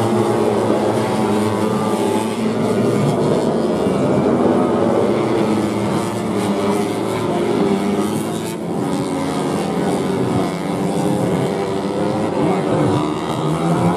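Several 150cc four-stroke underbone race motorcycles running at high revs together, their overlapping engine notes rising and falling as the riders shift and brake through the corners.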